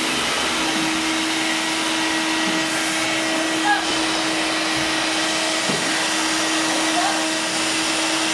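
Canister vacuum cleaner running steadily: an even rush of air with a constant hum under it.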